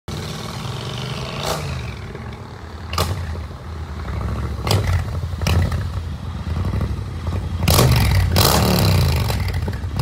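Custom Triumph Thruxton R 1200 parallel-twin running through its exhaust, its pitch rising and falling with the throttle, with a few sharp cracks in the first six seconds. It gets louder from just under eight seconds in.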